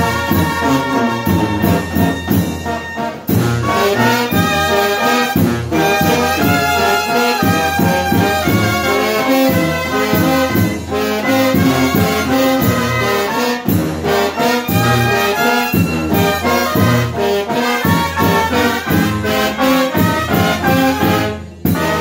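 A Mexican brass band (banda de viento) playing live: trombone, trumpet, sousaphones, clarinet and saxophone over bass drum and snare, with a steady beat.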